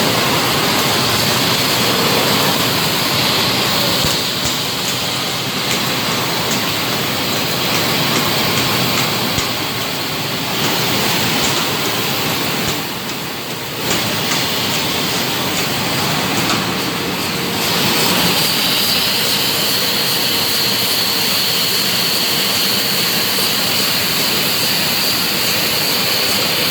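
A 12,000-bottle-per-hour bottled-water filling machine running: a loud, steady, hissing machine din, with a rapid light clicking from about four seconds in to about eighteen.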